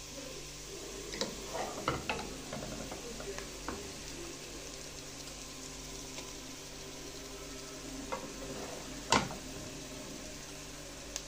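Chopped onions and blended pepper paste frying in oil in a pot, sizzling quietly while a wooden spoon stirs and scrapes through them. There are scattered light knocks of the spoon, with one sharp knock about nine seconds in.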